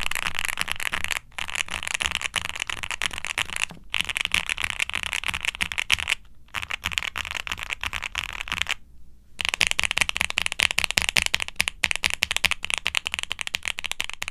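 Fast continuous typing on a QwertyKeys QK65 mechanical keyboard with full-POM Kailh Cream Pro switches on a polycarbonate plate. The keypresses are rapid and overlapping, with a few brief pauses and a longer one about nine seconds in. The board has all its foam and silicone dampening installed, and the owner calls its sound somewhat thocky but a bit muddled and rattly.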